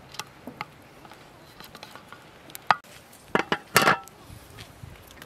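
Metal cookware clanking: a few light clicks, then a sharp knock about two and a half seconds in and a quick cluster of clanks with a brief metallic ring, as an aluminium lid goes onto a large cooking pot.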